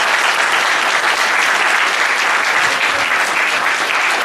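Audience applauding steadily, a dense even clapping that holds at full strength throughout.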